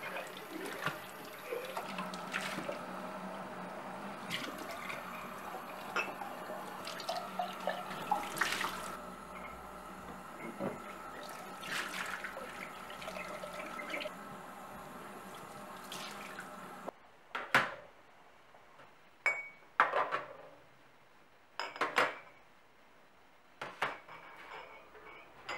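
Tap water running while empty glass jars are rinsed, with small knocks of glass. About two-thirds of the way in the water stops, and a series of separate clinks follow as the glass jars are set down on a metal oven tray, ready for sterilizing.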